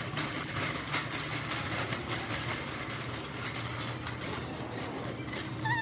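Steady low hum of a shop's background noise, with a faint, regular patter of footsteps and handling noise from walking.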